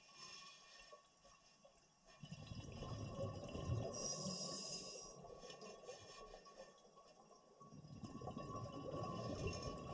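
Scuba diver breathing through a regulator underwater: two rounds of bubbling, rumbling exhalation, each ending in a short hiss of inhaled air.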